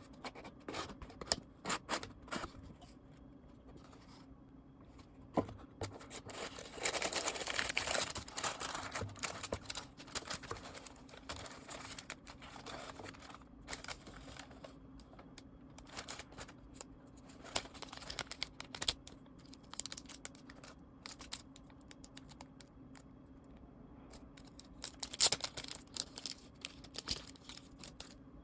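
Packaging being handled up close: paper or plastic crinkling and tearing in irregular bouts, with scattered small taps and clicks. The longest stretch of rustling comes about 6 to 9 seconds in, and another short cluster near the end.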